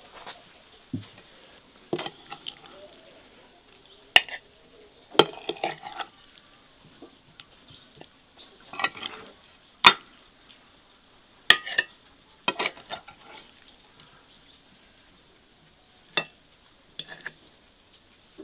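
Cutlery and dishes clinking: scattered sharp clinks and short clatters of a fork and spoons against ceramic plates and a serving bowl, about ten in all, with gaps of one to three seconds between them.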